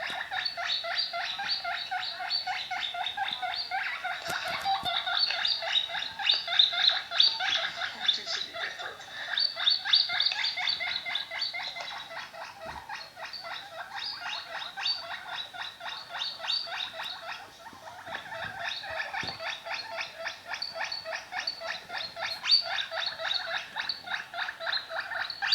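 Guinea pig calling without pause in a fast, steady run of high-pitched squeaky notes, many a second, easing off a little about halfway through and picking up again.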